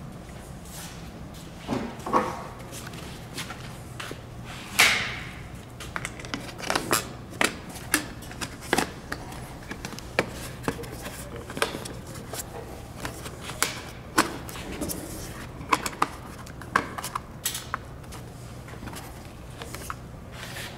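Hard plastic side covers of a Grammer MSG65 seat being handled and fitted back onto the seat frame: an irregular string of sharp clicks, taps and clunks. The loudest knock is about five seconds in.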